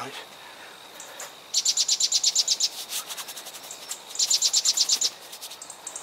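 A small songbird singing: two runs of rapid, evenly repeated high notes, about ten a second, each lasting about a second, with fainter chirps between them.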